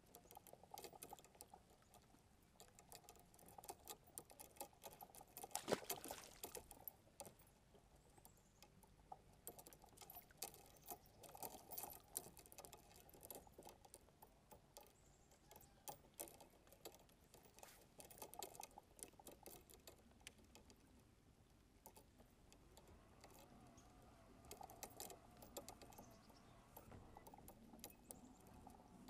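Faint, irregular clicks and taps of a fishing rod and reel being worked from a kayak while casting and retrieving, with a soft reel whirr now and then and one louder knock about six seconds in.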